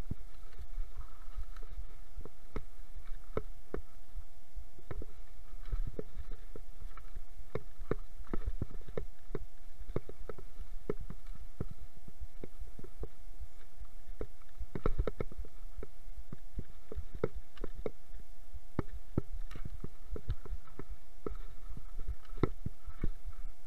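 Mountain bike rolling down a rough dirt trail: a steady low rumble with frequent irregular clicks and knocks of the bike rattling over the ground, one louder knock about fifteen seconds in, over a faint steady hum.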